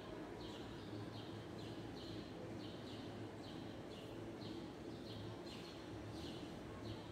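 A steady run of short, high, buzzy chirps from an animal outdoors, about one and a half a second, over a faint low room hum.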